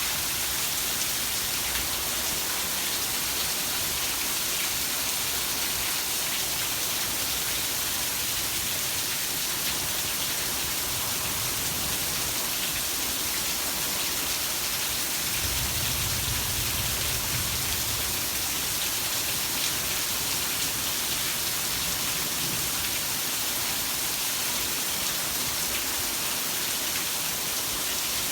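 Heavy rain falling steadily: a dense, even hiss. A low rumble lasts a couple of seconds a little past halfway.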